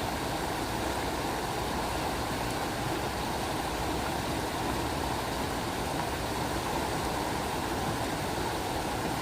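Steady rushing of flowing water, such as a creek or small waterfall, as an even, unbroken noise.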